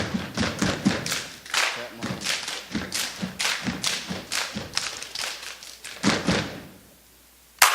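Steppers stomping and clapping in a fast rhythm of sharp thuds and slaps. The beat breaks off briefly near the end before another hit.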